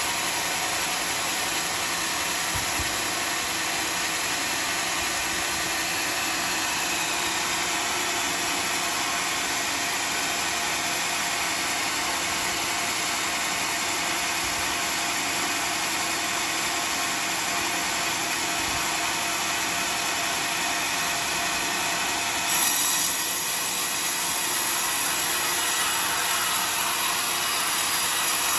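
Homemade band sawmill running steadily while sawing a teak log. About 22 seconds in, the sound turns brighter and briefly a little louder.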